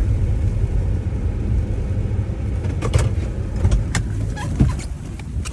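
Chevy Tahoe rolling slowly through deep snow: a steady low rumble of engine and tyres that eases near the end. Several sharp clicks and knocks come in the second half.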